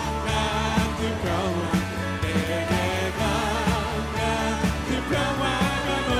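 Live contemporary worship band playing a praise song, with voices singing over bass, keyboard and a steady drum beat.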